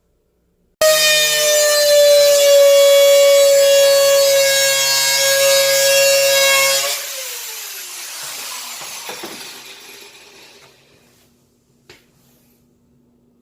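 Electric power saw running free at full speed with a steady high whine. About seven seconds in it is switched off, and the pitch falls and fades as the blade coasts to a stop.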